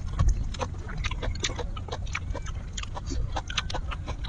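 Close-up eating sounds: wet chewing and lip-smacking, heard as many quick irregular clicks, over a steady low rumble.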